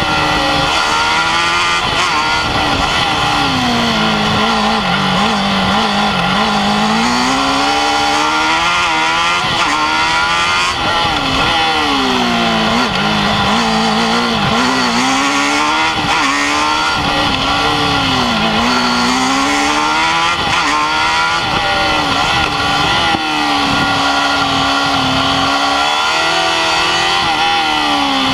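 Formula Student race car's engine, heard from an onboard camera, revving up and down as the car brakes into and accelerates out of corners; the pitch falls and climbs again several times.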